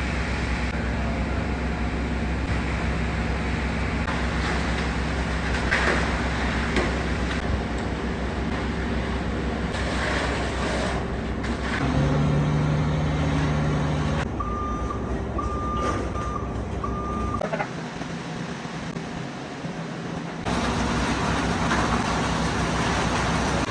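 Heavy truck engine running steadily, with a vehicle's reversing alarm beeping about four times around the middle.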